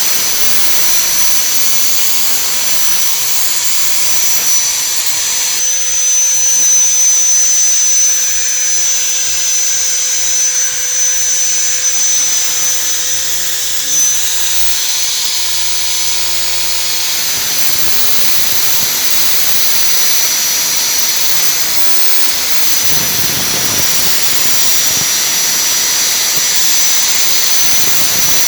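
Angle grinder running continuously on steel saw-blade stock, a loud hiss with a steady high-pitched whine; it changes about five seconds in and grows louder for several seconds, as if pressed harder into the metal.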